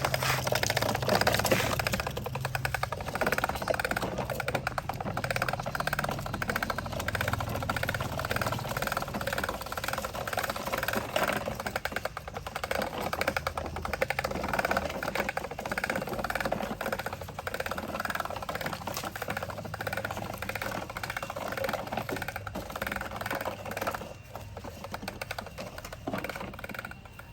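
Small electric motor and plastic gears of a toy construction vehicle running, with a continuous fast clicking clatter over a low hum.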